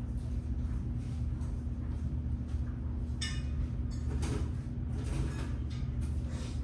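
A steady low hum runs throughout, with a few short clattering knocks of hard objects being handled, the clearest about three and four seconds in.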